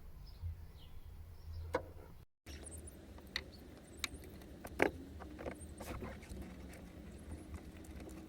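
Scattered small clicks and rustles of hands handling car audio wiring, over a low steady hum, with a brief dropout about two seconds in.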